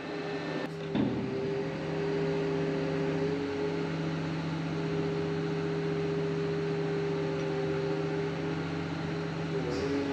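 Payloader's engine running steadily under load as the roll-out bucket's hydraulic function is held at the end of its stroke, with a single knock about a second in as the bucket reaches its stop.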